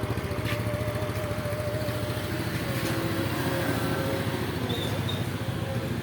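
Yamaha Mio 5TL scooter's small single-cylinder four-stroke engine idling steadily.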